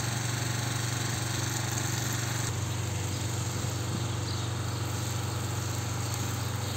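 A motor runs steadily with a low, even hum under a constant hiss.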